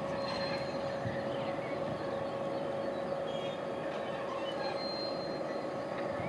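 Ludmilla diesel locomotive's Kolomna V16 engine running, a steady hum with a constant pitched drone.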